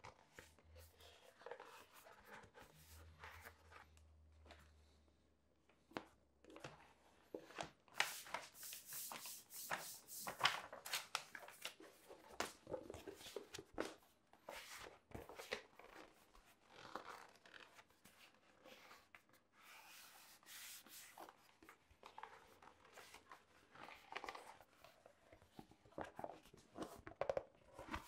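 Stiff shell cordovan leather hides handled by hand on plastic wrapping: irregular crinkling and rustling of the plastic, with the leather rubbing and flexing as it is rolled and lifted. The handling is busiest and loudest about eight to eleven seconds in, with another burst around twenty seconds.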